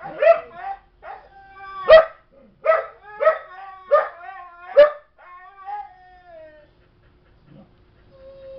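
A young Belgian Malinois barking in a burst of about six sharp barks, each trailing into a high, whiny tail, then tapering off into softer whines about six seconds in.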